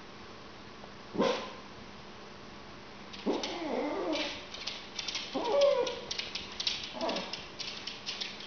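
Small white dog barking angrily: a sharp bark about a second in, a longer wavering bark a little past three seconds, then shorter barks near five and a half and seven seconds. Quick light clicks, its claws on the hardwood floor, run through the second half as it walks off.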